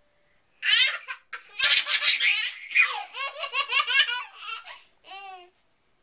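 Twin baby girls laughing, high-pitched belly laughs and giggles in quick repeated bursts. The laughter starts about half a second in, runs for about four seconds, and one short laugh follows near the end.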